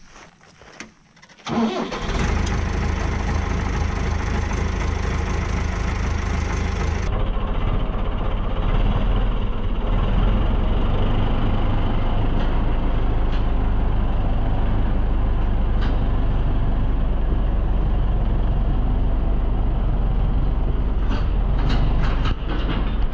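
A vehicle engine starts about one and a half seconds in and then runs steadily as it tows a boat across the grass on a dock line.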